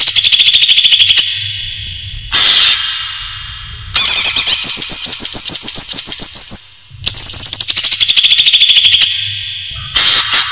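Cucak ijo, a green leafbird, singing: a series of loud phrases of very fast repeated high notes, each phrase lasting from under a second to about two and a half seconds, with short pauses between.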